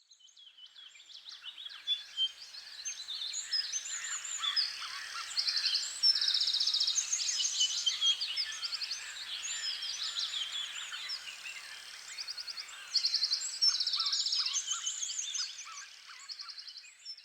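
A chorus of songbirds singing together, many overlapping chirps and whistles with several fast trills. It fades in at the start and fades out near the end.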